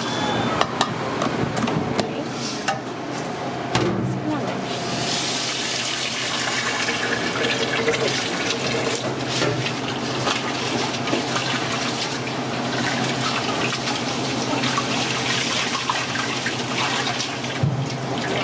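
Dry rice grains poured into a stainless steel stockpot, a dense patter of small clicks, then from about four seconds in tap water running into the pot while the rice is swished and rinsed by hand.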